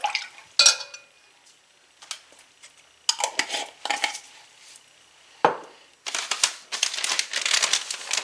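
A metal spoon clinking against a large glass measuring bowl of broth, with one sharp ringing clink about half a second in and a few lighter clinks after. A thud comes about five and a half seconds in, followed by steady crinkling and crackling of a paper soup-mix packet being handled.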